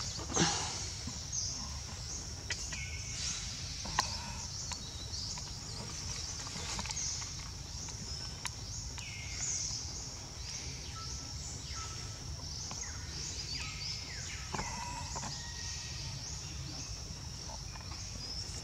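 Outdoor ambience of birds chirping and calling over and over, short falling notes scattered throughout, above a steady high-pitched drone and a low background rumble.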